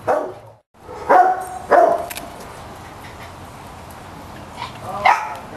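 Small dogs barking in short single barks: one at the start, two about half a second apart just after a second in, and another near the end.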